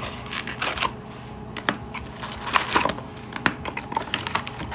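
Packs of 2020-21 Upper Deck Series 2 hockey cards being handled and set down on a table: their wrappers crinkle in short rustles, mixed with irregular light clicks and taps.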